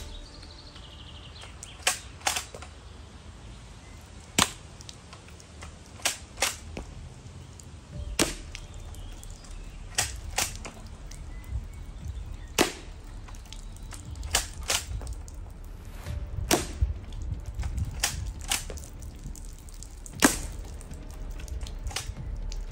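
Shots from an APS APM50 CO2-powered bolt-action airsoft sniper rifle: a sharp crack roughly every two seconds, often followed by a second, softer click about half a second later.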